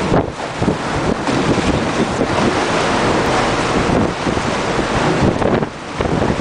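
Strong wind buffeting the microphone over the rush of open sea, with a brief lull near the end.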